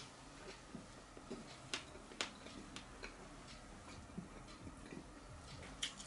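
Metal knife and fork clicking and scraping against a plate while chicken is cut off the bone, in irregular light clinks with the sharpest a little under two seconds in, again just after two seconds, and near the end.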